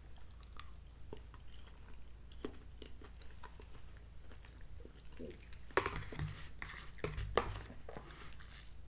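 A person chewing a mouthful of Salisbury steak, with soft wet mouth sounds and scattered small clicks as a metal fork works in a plastic TV-dinner tray. There are a couple of louder moments about two-thirds of the way through.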